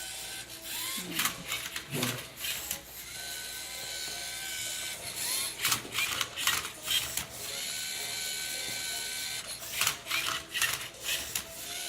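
LEGO EV3 MindCuber robot's motors whining steadily as it turns and tilts the Rubik's cube, broken by clusters of plastic clacks, while it scans the cube's colours before solving.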